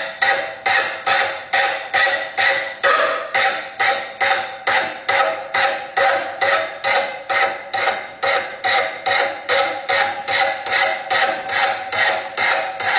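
Hammer striking metal on an anvil in a steady rhythm, about two and a half blows a second, with the anvil ringing between blows. The blows stop near the end.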